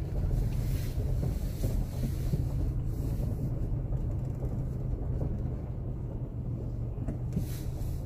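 Steady low rumble of a car driving slowly, heard from inside the cabin, its tyres rolling over a gravel lot.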